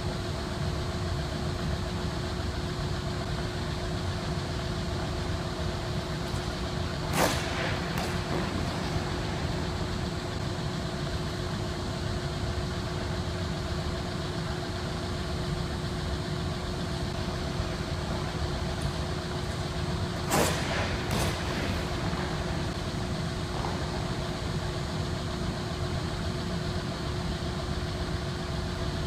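Steady machinery hum with a fixed low tone in an ice rink. Twice, about 7 and 20 seconds in, figure skate blades hit the ice in a sharp pair of strikes less than a second apart, a jump's takeoff and landing.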